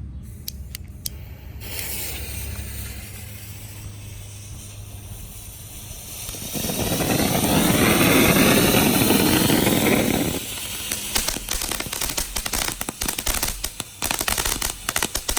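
Small firework fountain burning: after a few sharp clicks, a spraying hiss starts about one and a half seconds in and swells into a loud rush from about six to ten seconds. It then gives way to dense, rapid crackling.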